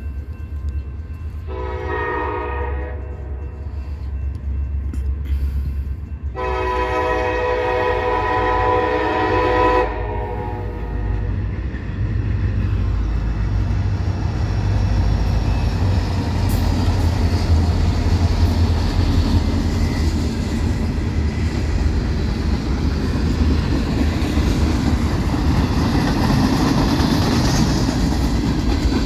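Air horn of CSX EMD SD40-2 and SD40-3 diesel locomotives sounding a short blast, then a longer one a few seconds later, over the low rumble of their engines. The locomotives then pass close by, and the engine rumble and the rolling rail noise of the train grow louder and stay loud.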